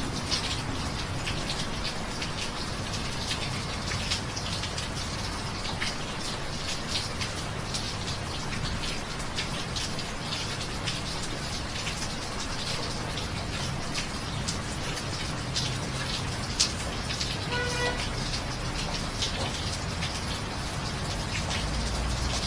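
Steady rain falling, with a dense patter of individual drops striking hard surfaces. A brief pitched tone sounds once about three-quarters of the way through.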